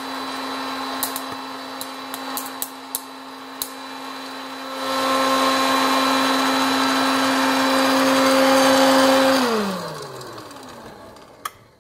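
Hot-air popcorn maker's fan motor running with a steady hum, with a few sharp kernel pops in the first few seconds. About nine seconds in the motor is switched off and winds down, its hum falling in pitch and fading.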